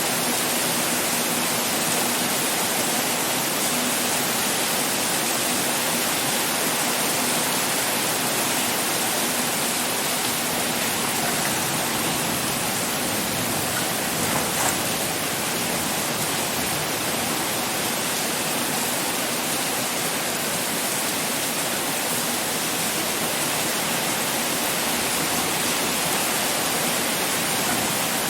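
Heavy rain pouring, a steady dense hiss with no let-up, with a single brief tap about halfway through.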